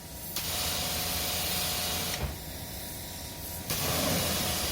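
High-pressure water spraying from a self-service car wash wand onto a car, a steady hiss with a faint pump whine under it. The spray starts shortly in, eases off in the middle and comes back strong.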